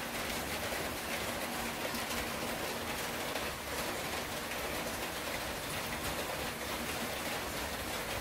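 Firewood burning in a small homemade wood stove, crackling with many fine pops over a steady hiss.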